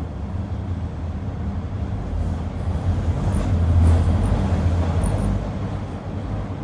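Toronto subway car heard from inside at the seam between cars, running along the track with a steady low rumble. The rumble swells to its loudest about halfway through, then eases.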